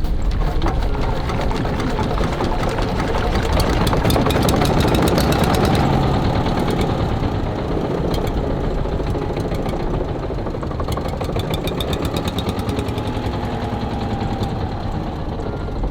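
Small engine running steadily with a fast, even pulse, a little louder about five seconds in.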